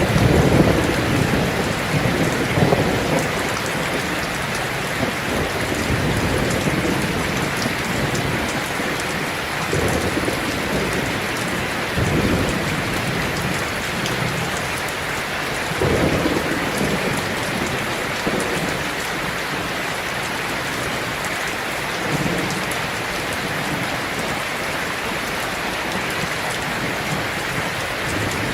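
Heavy rain drumming on a tin roof, a steady dense patter, with thunder rumbling low underneath. The rumble is loudest at the start and dies away over the first few seconds, and a few shorter low rolls come later.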